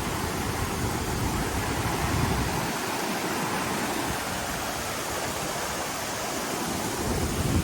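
Steady rush of a waterfall on a stream swollen with rainwater, with a low rumble under it that drops away about three seconds in.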